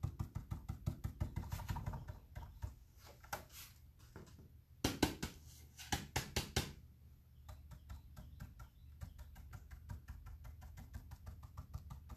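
Stiff stencil brush pounced up and down through a stencil onto a painted board: a fast run of light taps, several a second. About five to seven seconds in, the brush is dabbed on a paper-plate palette in fewer, louder taps, then the quick light tapping on the stencil resumes.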